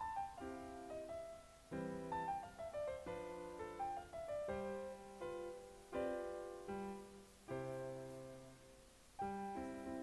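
Background piano music: melodic runs that step downward over held lower notes, in short phrases that restart every few seconds.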